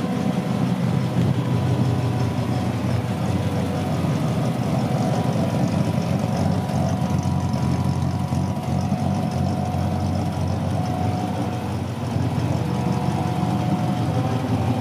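A 1939 Ford half-ton pickup's rebuilt 221 flathead V8 running steadily at low revs through its dual exhaust, dipping slightly in level about three-quarters of the way through.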